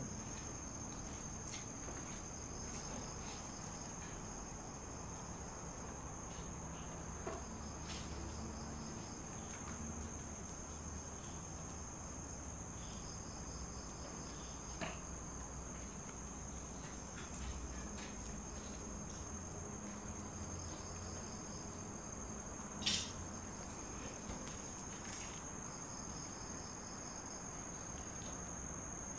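Night insect chorus: crickets keep up one steady, high, unbroken trill, while another insect calls in short pulsed bursts every few seconds. A few faint sharp knocks sound over it, the loudest about 23 seconds in.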